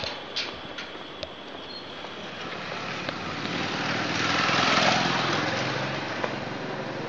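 A motor vehicle's engine passing by: it grows louder to a peak about five seconds in, then fades. A few light clicks come in the first second or so.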